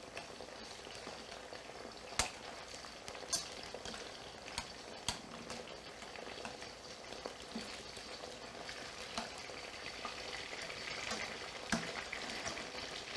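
Zucchini slices frying in shallow oil in a stainless steel pan: a steady sizzle, with a few sharp clicks of metal tongs against the pan as the slices are turned.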